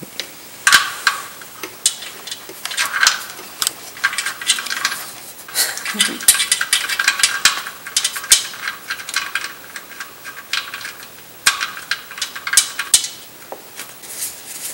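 Irregular light metallic clicks and scraping from an oil drain plug being handled and threaded back into the oil pan by hand.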